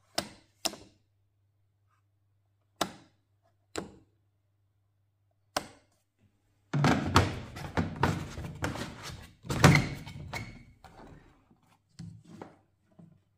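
Two sharp clicks of a plastic rocker switch being pressed, then single knocks and thunks of the sprayer's plastic parts being handled. A dense run of clattering knocks follows in the middle, with a few more knocks near the end.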